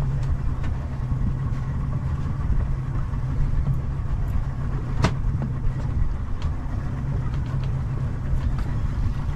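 Boat engine running steadily with a constant low hum, with a single sharp knock about halfway through.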